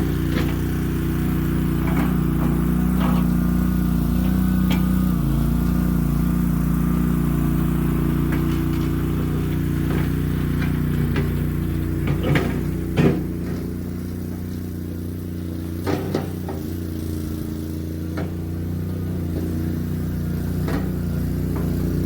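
Boxer 320 mini skid steer engine running steadily, with a few sharp metallic knocks about halfway through and again a few seconds later.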